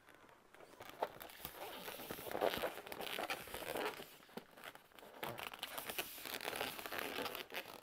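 Inflated latex balloons, dark green 260 twisting balloons and lime-green 5-inch rounds, rubbing and squeaking against each other and against hands as they are pressed and fitted together, with irregular scratchy rubbing and scattered light clicks.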